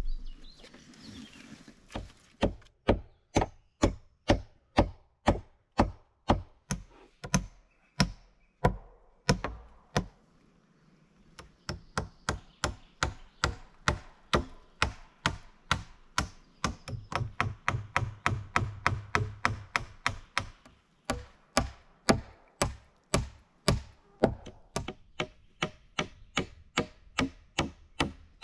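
Hand tool striking wood in steady repeated blows, about two a second, then after a short pause a faster run of about three a second.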